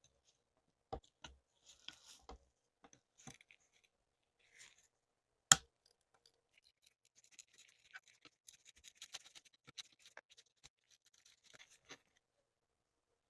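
Small metal parts of a rusty Llama 1911-style pistol clicking and scraping as it is handled. There is one loud sharp click about five seconds in, then several seconds of light rasping scrapes mixed with small clicks.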